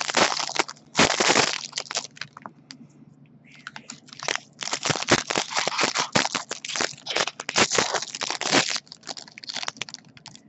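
Foil wrapper of a jumbo baseball card pack crinkling and crackling as it is torn open and the cards are pulled out, with a short lull about two to three seconds in.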